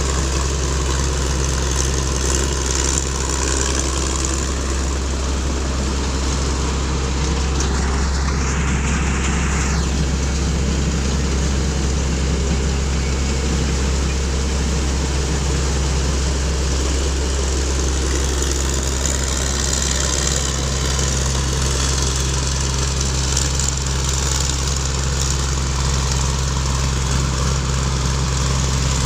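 Kaset Pattana rice combine harvester running steadily while harvesting, its engine giving a continuous low hum. A brief rushing noise lasts about two seconds, roughly eight seconds in.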